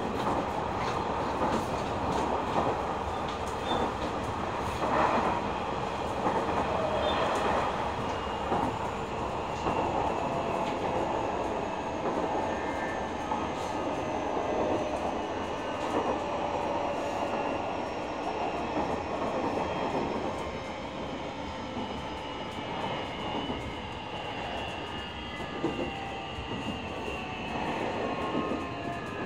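Nishitetsu 9000 series electric train running, heard from inside the car: wheel and rail rumble with the whine of its Toshiba hybrid-SiC VVVF inverter and enclosed fan-cooled induction traction motors. Several whining tones slowly shift in pitch as the train's speed changes.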